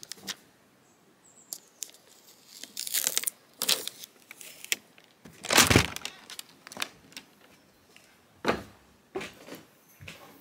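Irregular clicks, knocks and crackling rustles close to the microphone, the loudest a short burst of rustling about halfway through: handling noise at a caravan door.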